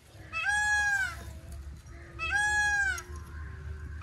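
Peacock calling while being held: two long, loud calls, each a little under a second, about two seconds apart, with a third starting right at the end.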